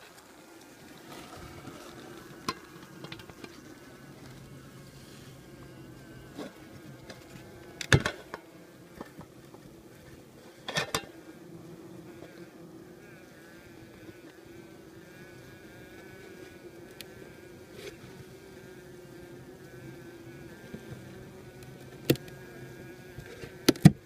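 Honeybee colony humming in an opened hive: a steady, wavering drone. A few sharp clicks and knocks break through it, the loudest about a third of the way in, again just before halfway, and twice near the end.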